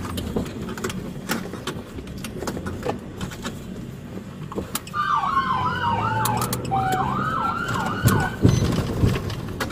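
Police cruiser siren, heard from inside the cruiser, switched on about five seconds in for a few quick rising-and-falling yelps lasting about three seconds, then cut off: a short siren burst to order the car ahead to pull over.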